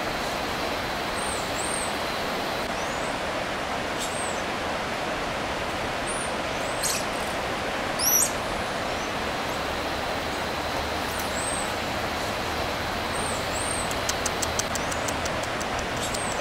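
Jungle ambience: a steady rushing hiss with short, high chirping calls every second or two, one louder call about halfway through, and a quick run of high ticks near the end.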